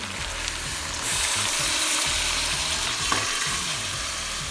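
Water poured from a bowl into a hot pot of browned goat meat, setting off a loud sizzle about a second in that slowly dies down.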